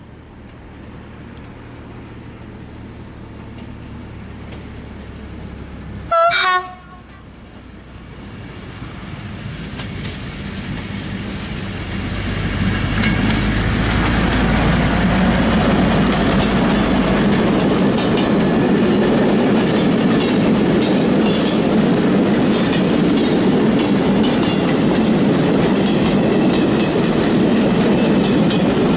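SNCF BB 69000 diesel locomotive approaching, its engine growing steadily louder, with a short horn blast about six seconds in. It then passes close, and its train of wagons rolls by with wheels clattering on the rails.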